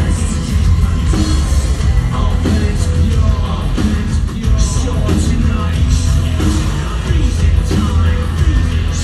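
Live industrial band playing loud, with a heavy, steady bass and a singer's voice over it.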